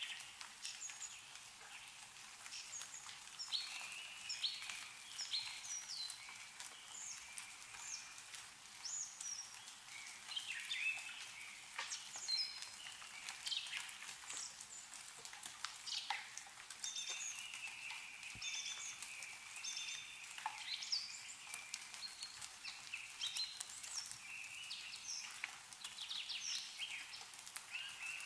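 Several small songbirds chirping and trilling continuously, with scattered drips and patter of snowmelt falling from trees.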